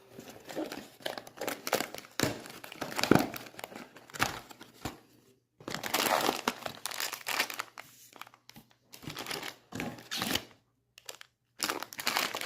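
A sealed blind box's packaging being torn and crinkled open by hand, in irregular rustling bursts with short pauses.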